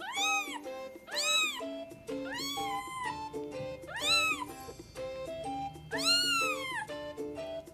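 Kitten meowing five times, each a high call that rises and falls in pitch, over light background music of short plucked notes.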